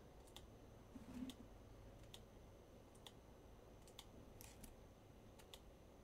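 Faint computer mouse clicks, about ten of them at uneven intervals, over near-silent room tone with a faint steady high whine.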